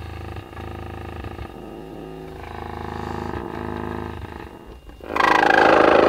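300-watt subwoofer driver with its dust cap off, playing a low bass tone with a rough buzz: its voice coil is rubbing against the magnet, which the owner thinks is debris still lodged in the gap. The buzz changes in tone partway through as the speaker is tilted. Near the end comes a loud hiss of compressed air, about a second long.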